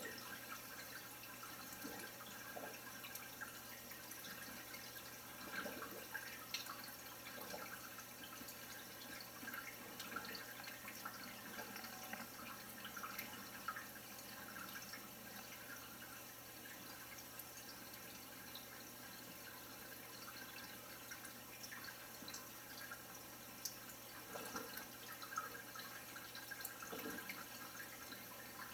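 Faint trickling and dripping of water from a saltwater reef aquarium's running filtration, over a steady low hum, with a few brief, slightly louder moments.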